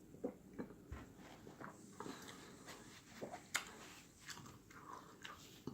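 Close-miked chewing and biting of barbecue rib tips: faint, irregular wet mouth clicks and smacks as the meat is eaten.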